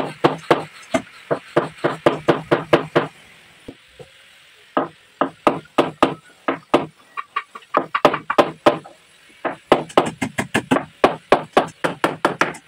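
Hammer driving nails into a wooden sofa frame: quick runs of sharp blows, about four a second, broken by a couple of short pauses.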